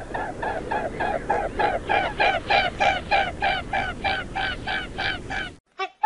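A swan calling: a fast, even run of short calls, about three a second, over a steady background noise, breaking off about half a second before the end.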